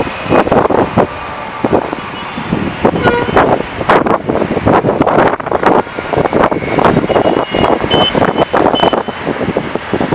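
Twin-turboprop ATR airliner on final approach, its engine and propeller noise heard through heavy, gusty wind buffeting on the microphone. A thin high whine comes in about seven seconds in as the aircraft draws closer.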